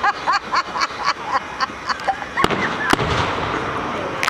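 Fireworks going off: a quick run of small pops in the first two seconds, then two loud sharp bangs about half a second apart, followed by a steady rush of noise.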